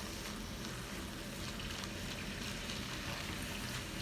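Chopped vegetables frying in vegetable oil in a pan, a steady low sizzle.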